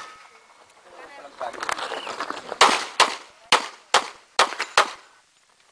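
Pistol fired six times in a quick string, about half a second apart, starting about two and a half seconds in.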